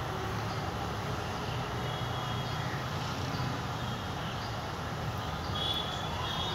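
Steady outdoor rumble of distant city traffic, with a few short high-pitched sounds near the end.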